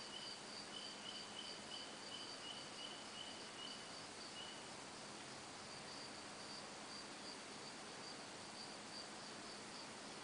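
Night insects chirping in steady pulsed rhythms: a higher-pitched caller repeating throughout and a lower one, about three chirps a second, that stops about halfway through, over a constant faint hiss.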